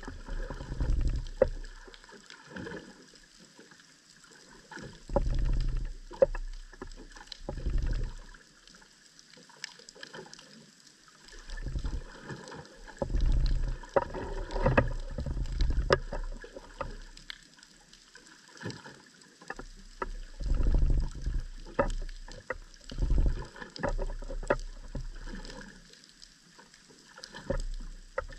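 Underwater ambience heard through a submerged camera: irregular muffled low surges of moving water every few seconds, with scattered sharp clicks and crackles over a faint hiss.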